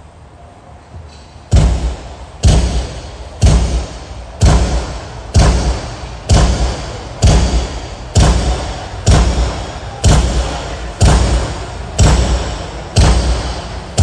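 Kick drum struck steadily about once a second through the PA, each hit heavy in the bass and echoing away before the next, as in a sound check of the drum. It starts about a second and a half in.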